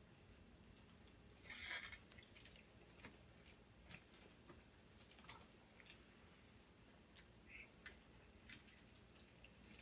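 Faint chewing and small mouth clicks from someone eating a steak and cheese sub with fries, with a brief louder rustle about a second and a half in.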